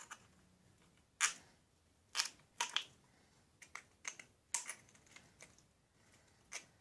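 Pliers working the thin aluminium edge of a cut drink-can piece, trimming off remnants: irregular short, sharp clicks and crinkles of the metal, about ten in all, spaced less than a second apart.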